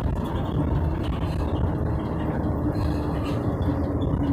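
Vehicle engine and road noise, a steady low rumble. A steady droning tone joins it about half a second in.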